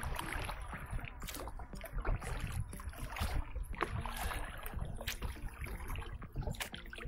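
Oars of an inflatable rowing boat dipping and splashing, with irregular short knocks and water washing against the boat.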